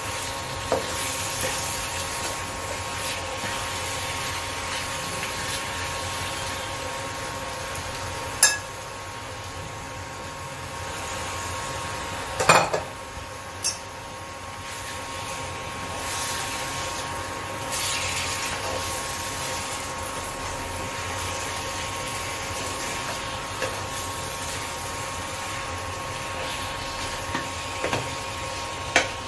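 Marinated mutton and potatoes sizzling in a nonstick kadai while a nylon spatula stirs and scrapes through them, with a few sharp knocks of the spatula against the pan.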